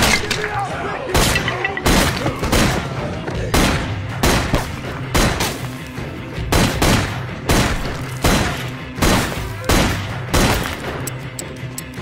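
Repeated loud gunshots, one roughly every half second to a second, over a low droning film score.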